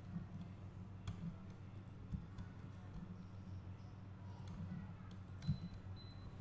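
A few sharp computer mouse and keyboard clicks, the loudest about five and a half seconds in, over a steady low hum.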